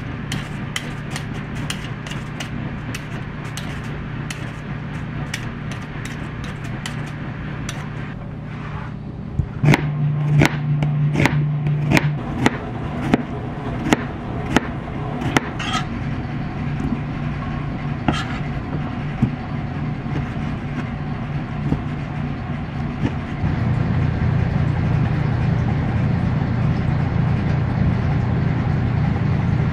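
Steady engine and road hum heard from inside a moving vehicle's cabin, louder from about two-thirds of the way in, with a run of sharp clicks or taps in the first half.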